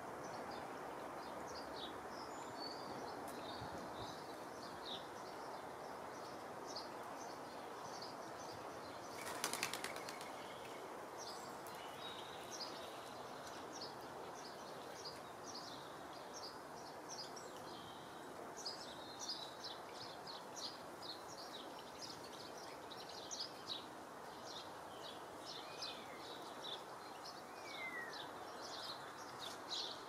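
Small garden birds chirping in quick, short, high calls over a steady background hiss, the calls growing busier in the second half. About nine seconds in comes a brief, loud flutter of wingbeats.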